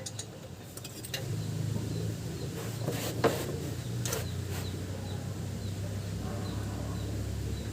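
A steady low machine hum starts about a second in and keeps running, with a few sharp clicks around three to four seconds in.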